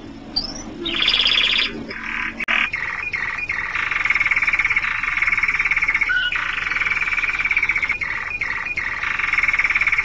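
Spanish Timbrado canary singing the timbre profundo (deep timbre) tour. After a short opening phrase, it sings a long, rapidly pulsed trill, broken by a few brief pauses.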